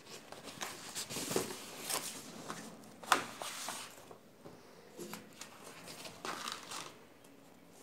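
Paper and card rustling and crinkling as sheets are handled and pages of a project file are turned, with a sharp crackle about three seconds in.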